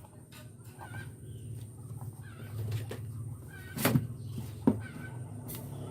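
Chickens clucking now and then in the background over a low steady hum, with a couple of sharp knocks about four and five seconds in.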